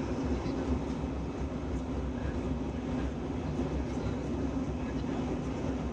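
Steady cabin noise inside an Airbus A319 in flight during the climb after takeoff: a constant low rumble of the engines and rushing airflow with a steady hum underneath.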